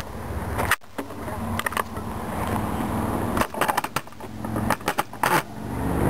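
Handling knocks and wind rumble on a handheld camera's microphone, with the low rumble of a distant approaching train growing louder near the end.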